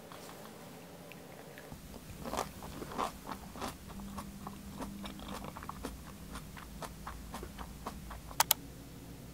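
Chewing a mouthful of cabbage-leaf wrap with rice and spam ssamjang: soft crunching bites repeating about every half second, a few louder crunches two to three seconds in. Two sharp clicks close together near the end.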